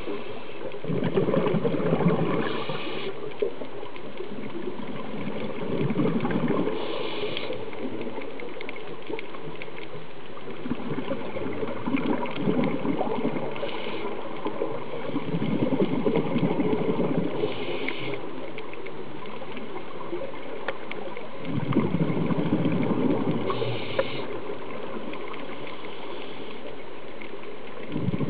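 Underwater sound of a scuba diver breathing through a regulator: bursts of exhaled bubbles rumbling out about every five seconds, each with a short higher hiss, over a steady underwater crackle and hiss.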